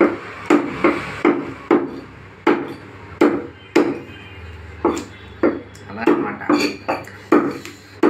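Cleaver chopping chicken on a round wooden chopping block: about fifteen sharp knocks at an uneven pace of one or two a second.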